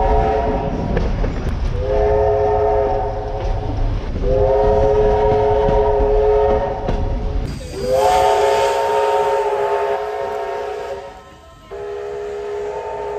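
A New South Wales railway locomotive's multi-note chime sounds a series of long blasts, each held for a few seconds, over a low rumble in the first half. The chord shifts abruptly twice, as recordings of different locomotives follow one another.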